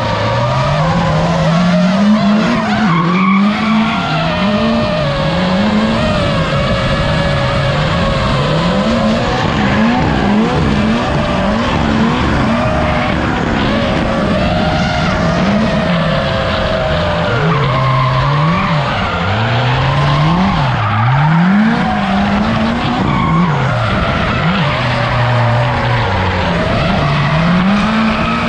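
Drift car's engine revving hard and falling back over and over, rising and dropping in pitch about once a second as the car is held in a slide, with the rear tyres skidding and smoking.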